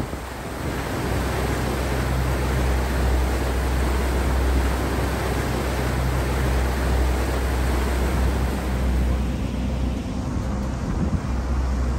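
Passenger ferry's engine droning low and steady under the rushing wash of water churned up by the boat. Near the end the rush thins and a few gusts of wind buffet the microphone.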